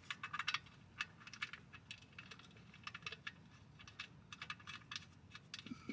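Faint, scattered light metallic clicks and ticks from handling the oil drain plug with its new crush washer and starting it by hand into the oil pan.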